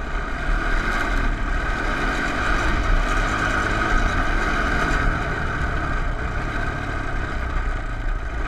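Honda TRX250 ATV's single-cylinder engine running steadily while the quad drives along a snowy trail.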